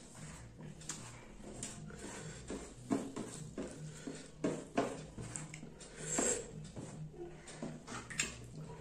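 Close-up eating sounds: irregular wet clicks and smacks of chewing and lips, with fingers mixing rice and curry on a plate.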